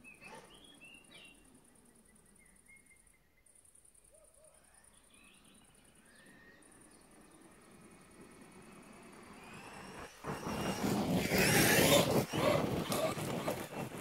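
Traxxas Maxx RC monster truck's brushless electric motor whining higher as it speeds up and closes in, its tyres tearing across gravel loudest about ten seconds in, then fading as it moves away. Birds chirp faintly before it arrives.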